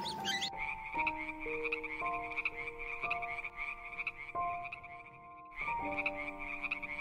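Frogs croaking in a rapid, rattling chorus that starts about half a second in and breaks off briefly around five seconds in. Held musical notes that change pitch run underneath.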